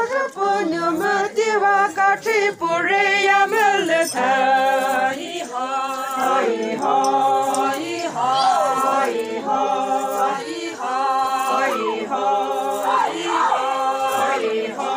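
Group of women singing a Pochury Naga folk tune together, unaccompanied, in long held notes that step from pitch to pitch with a few sliding notes.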